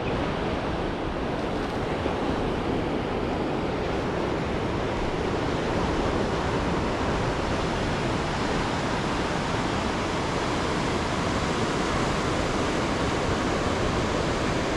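Ocean surf giving a steady, even rushing sound.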